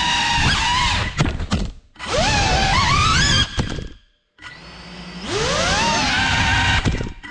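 FPV quadcopter's brushless motors whining, their pitch rising and falling with the throttle. About a second in the drone crashes, with a quick run of knocks as the whine drops away. The motors then spin up twice more in rising whines, with a brief near-silent gap in between where they stop, while the downed quad stays on the floor.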